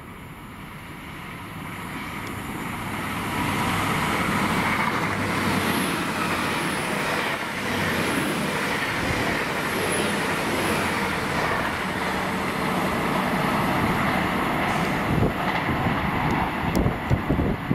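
Train approaching and running past close by: it grows louder over the first few seconds, then holds as a steady rumble and rush. A few low thumps come near the end.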